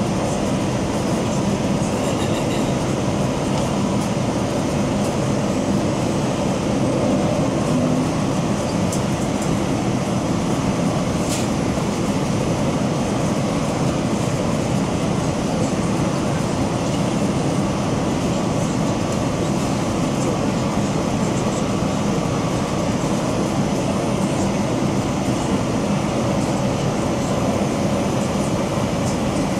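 Steady cabin noise inside a Boeing 787-9 on approach, heard from a window seat beside the wing: the drone of its GEnx-1B turbofan engines and the rush of air over the fuselage, unchanging throughout.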